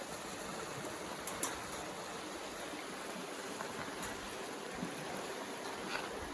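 Steady rushing of a stream running below, with a few faint clicks.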